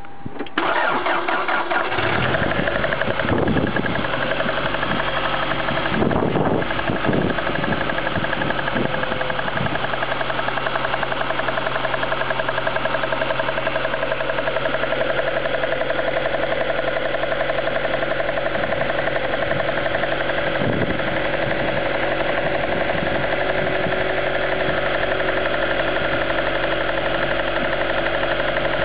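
A Toyota ST202's inline-four engine starting about half a second in, then idling steadily, its idle settling lower over the first several seconds. The owner records it for an abnormal engine noise.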